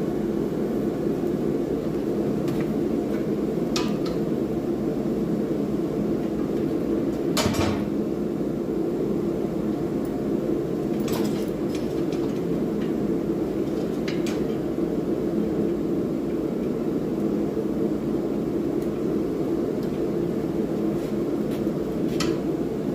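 A forge running with a steady, low roar, and a few scattered sharp metal clanks, about five, spread unevenly over the stretch.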